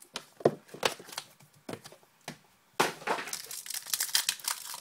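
Plastic wrapping being torn and crinkled as a small trading card box is opened. A few separate crackles and knocks come first, then about three seconds in a dense run of crinkling and tearing.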